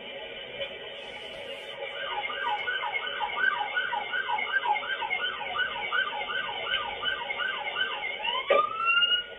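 Police car siren in a fast yelp, about three sweeps a second, switching near the end to a single rising wail that cuts off abruptly.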